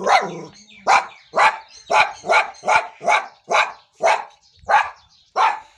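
Tied-up guard dogs barking over and over, short sharp barks about two to three a second, with a brief pause near the end.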